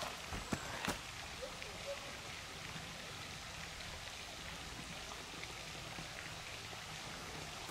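Steady outdoor hiss like light rain, with two sharp clicks about half a second and a second in.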